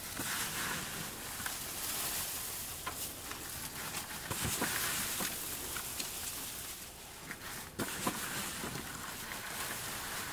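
Shredded paper and straw rustling as handfuls are dropped and scattered onto a compost pile, with scattered light crackles.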